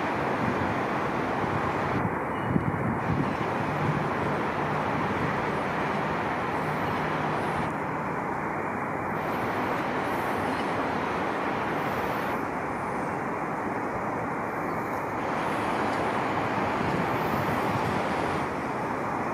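Steady road traffic noise from cars driving along a city avenue, with no siren sounding.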